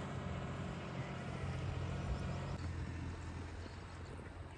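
Low steady engine hum that fades noticeably about two and a half seconds in.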